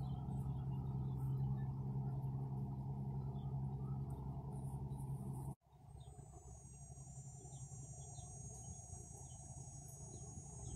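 Outdoor summer ambience: insects trilling, over a steady low hum that cuts off abruptly about halfway through. After that the sound is quieter, with a steady high insect buzz.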